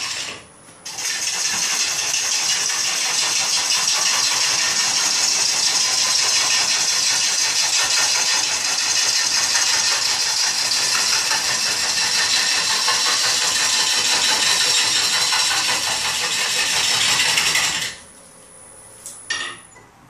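JET wood lathe turning a large bowl blank while a gouge cuts it, making a loud, steady scraping noise. The noise drops out briefly about half a second in and stops abruptly near the end, followed by a couple of light clicks.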